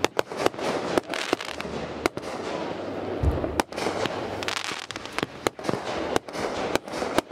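Consumer fireworks cake firing: a rapid, irregular string of sharp launch thumps and aerial bursts, with crackling between them and one deeper boom about three seconds in.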